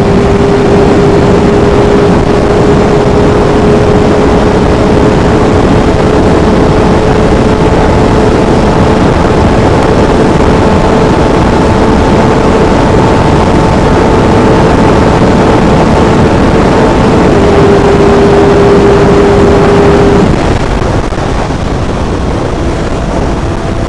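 Kawasaki Ninja ZX-6R inline-four with an Arrow full-system exhaust running at steady high revs at speed, a held engine note over dense rushing noise. About 17 s in the note steps down slightly, and about 20 s in it ends and the sound drops a little.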